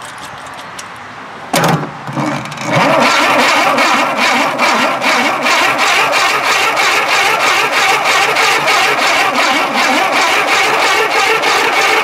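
Briggs & Stratton engine being cranked by its electric starter but not firing: a brief loud burst about a second and a half in, then steady cranking with an even chug of compression strokes, about three a second, that stops just before the end. The engine will not catch because it has no spark, and the owner suspects a bad ignition coil.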